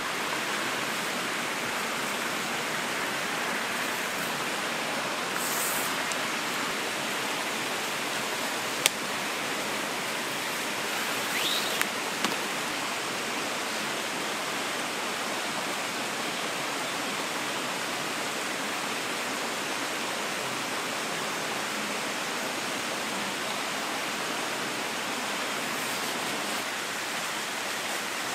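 Steady rushing of a forest stream, even and unbroken. A single sharp click about nine seconds in.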